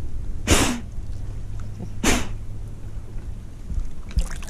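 Two short, forceful puffs of breath about a second and a half apart, blown through a snorkel to clear the water left in its tube, over a steady low rumble.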